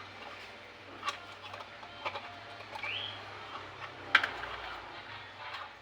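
A few sharp clicks and knocks, the loudest about four seconds in, and one short rising chirp near the middle, over a steady low hum.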